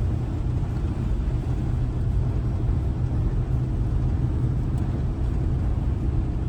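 Camper van driving at a steady speed, its engine and road noise heard as an even low rumble from inside the cab.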